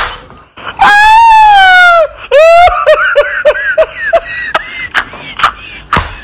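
A high-pitched voice screams one long, very loud note that slides slightly down in pitch, then breaks into a rapid cackling laugh, with sharp clicks scattered through.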